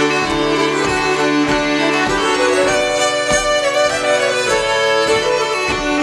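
Swedish folk ensemble of nyckelharpas, flute and accordion playing a traditional slängpolska, the bowed nyckelharpas carrying the tune over a steady dance pulse.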